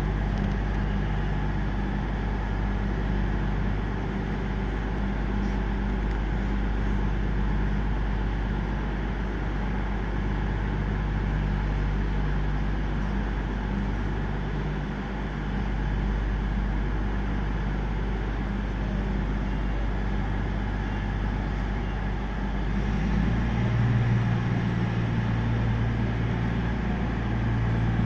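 CrossCountry Voyager diesel multiple unit's underfloor diesel engines running at idle with a steady low drone, then throttling up louder in the last few seconds as the train starts to depart.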